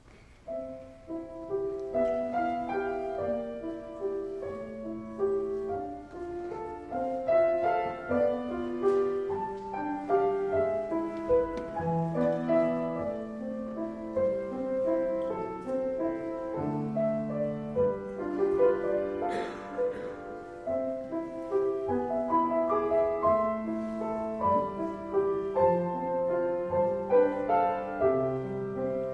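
Solo piano music: a flowing melody of held notes over lower accompanying notes, beginning about a second in.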